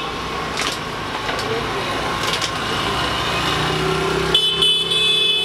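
Street traffic with a small engine running, growing louder in the last couple of seconds, with a high steady ringing tone over it near the end.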